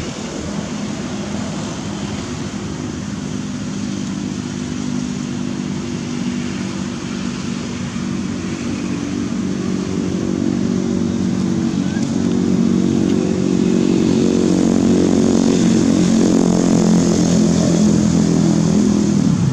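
A motor vehicle engine running at a steady low pitch, growing louder over the second half and dropping in pitch as it cuts off at the very end.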